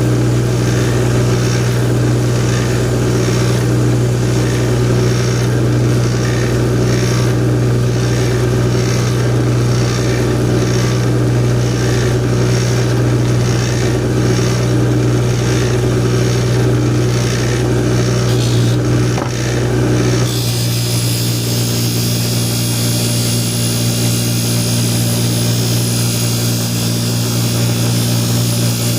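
High-speed buffer running with a steady motor hum while a serrated bread knife is worked against the wheel. The blade makes a rubbing sound that swells and fades about once a second, then changes about two-thirds of the way through to a steadier, brighter hiss.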